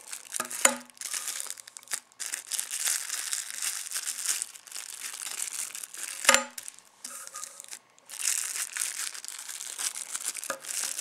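Clear plastic wrap crinkling and crackling in fits and starts as it is pulled off a throwing-knife sheath, with a sharp knock just under a second in and a louder one a little past halfway.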